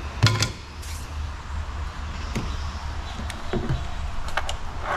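Scattered plastic clicks and knocks as a battery pack is worked loose and pulled out of its compartment in the underside of a Sunseeker Orion X7 robotic lawn mower, the loudest knock just after the start. A low steady hum sits underneath.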